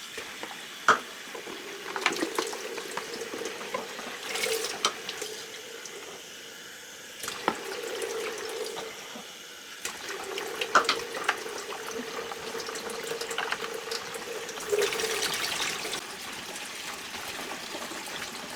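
Water running from a tap as humidifier parts are rinsed under it. The water makes a steady splashing rush with a humming tone that breaks off and returns a few times. A few sharp knocks sound over it.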